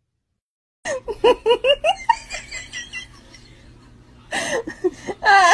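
A person laughing in quick, high-pitched repeated bursts, starting about a second in, easing off, then breaking into laughter again near the end.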